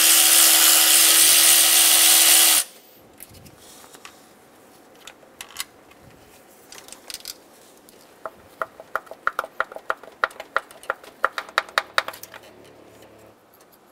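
A power tool spins out a 10 mm bolt from the engine's lower timing cover, running steadily with a held whine for about two and a half seconds and then stopping. Several seconds later a ratchet clicks in a quick, even run of about four or five clicks a second for some four seconds.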